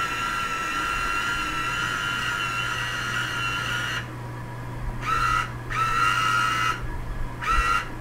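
Orion StarSeeker IV go-to telescope mount's motors whining as the mount slews: one steady high whine for about four seconds, then three shorter whines of a second or less as the motors start and stop, over a low steady hum.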